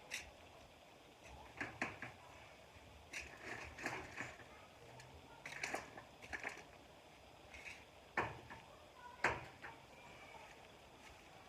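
Irregular light knocks and scrapes of hands digging through raised-bed soil and handling potatoes, with two sharper knocks near the end.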